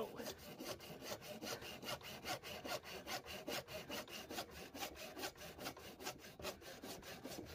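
Hand saw cutting through PVC pipe in quick, even back-and-forth strokes, about six rasps a second.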